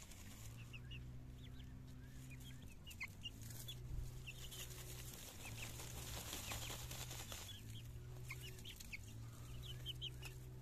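Young Amrock chickens giving many short, high peeping calls and soft clucks while dust bathing, with a stretch of rustling in the middle. A low steady hum runs underneath.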